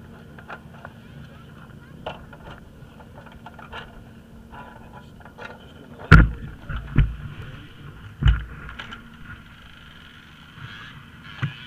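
Three heavy thumps close to the microphone, about a second apart, with smaller knocks and scrapes from rescue gear being handled near the camera, over faint voices and a low steady hum.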